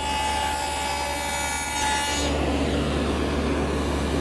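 Table saw with a stacked dado set cutting a rabbet in a plywood frame piece: a high whine of many tones over the motor's steady hum for about two seconds, after which the sound drops to a steadier, lower running sound.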